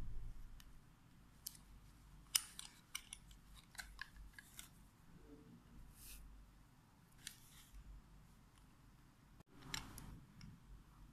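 Faint handling sounds: scattered small clicks and fabric rustles as a plastic-and-metal digital luggage scale is handled in and out of a cloth drawstring pouch and the pouch's cord is pulled.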